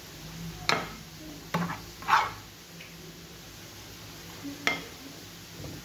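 Metal spoon stirring thick tomato sauce in a pan, knocking and scraping against the pan four times, the longest scrape about two seconds in, over a faint steady sizzle.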